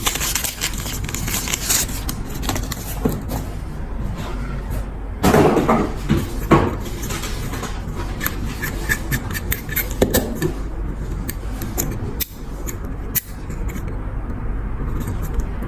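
Small clicks and scrapes of a metal oil lighter being handled and taken apart, its insert, cotton and wick being examined, over a steady low hum.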